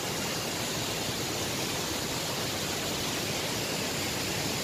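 Waterfall nearby: a steady, even rush of falling water.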